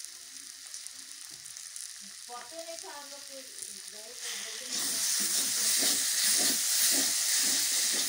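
Chopped vegetables sizzling in oil in an aluminium kadhai while a spatula stirs and scrapes against the pan. The sizzle grows louder a little past halfway, and from then on the spatula scrapes come a couple of times a second.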